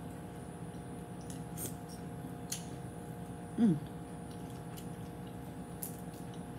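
Close-up eating sounds of peeling and eating boiled shrimp: a few faint clicks and crackles of shell under the fingers, and a short hum of the voice falling in pitch about three and a half seconds in, the loudest moment. A steady low hum runs underneath.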